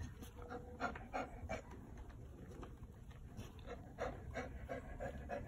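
Shar-pei bitch panting in short, quick breaths while in labour, as a puppy in its sac is being pushed out. The breaths come in two runs: a few about a second in, then a faster run near the end.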